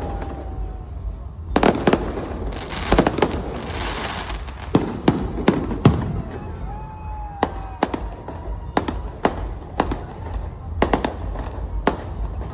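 Aerial fireworks bursting: a long irregular series of sharp bangs, with a dense stretch of crackling about three to four seconds in.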